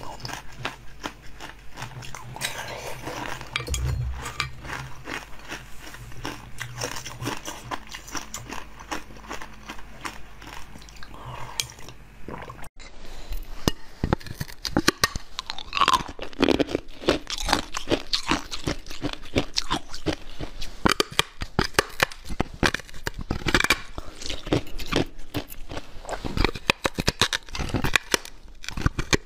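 Close-miked eating sounds: soft mouth and chewing noises for the first dozen seconds, then loud, sharp crunching bites and chewing into a hard keyboard-shaped green chocolate, with repeated cracks as pieces break off.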